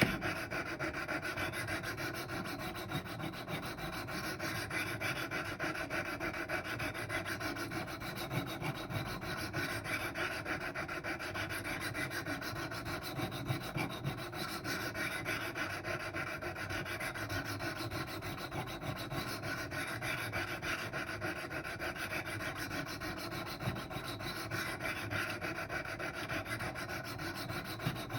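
Abrasive stones of a Wicked Edge guided sharpener stroking back and forth along a Rex 45 steel knife blade in a steady, continuous scraping. These are the passes that reprofile the edge to 15 degrees and raise a burr on the second side of the blade.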